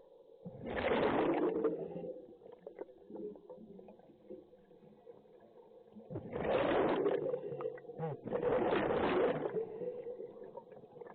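Scuba breathing through a regulator underwater: three loud rushes of breath and bubbles, each about a second long, the first about a second in and two close together later on.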